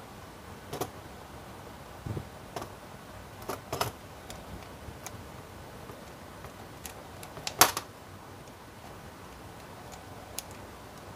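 Scattered light metallic clicks and taps as an opened starter motor is handled and a screwdriver tip prods its planetary gears, with a dull knock about two seconds in and the loudest, sharpest click a little past halfway.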